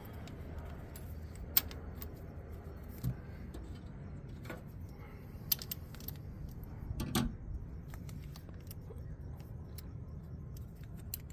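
Steel lifting chain and bolt clinking now and then as the chain is bolted to an engine block for a hoist: about half a dozen short metallic clicks over a low steady rumble.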